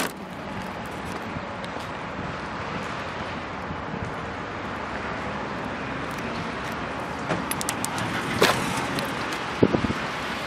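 A car's trunk lid slammed shut at the very start, the loudest sound, followed by steady outdoor background noise. Near the end come a sharp click and a few knocks as a rear door latch is pulled and the door opens.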